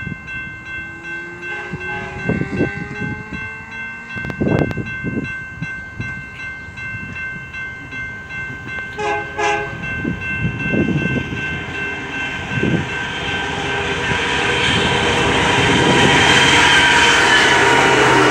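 BNSF diesel locomotives hauling a loaded coal train, approaching and passing close by. The engine rumble and wheel noise build steadily and are loudest in the last few seconds as the lead locomotive goes by.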